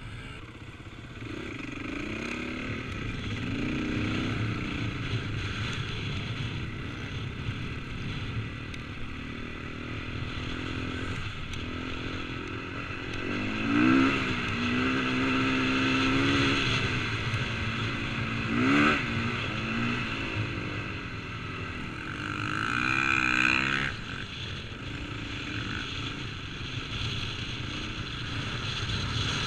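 KTM 450cc single-cylinder four-stroke dirt bike engine under way, heard through a helmet-mounted action camera. It revs up sharply three times in the second half.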